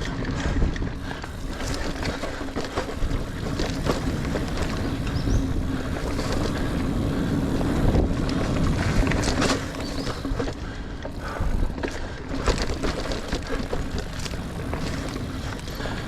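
A Niner Air 9 RDO 29er mountain bike being ridden along dirt singletrack: tyres rolling on the trail, with frequent clicks and rattles from the bike and wind buffeting the microphone.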